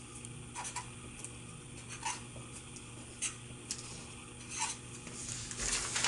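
Sharpie marker writing on a sheet of paper in short, scratchy strokes, with the paper handled and rustling near the end.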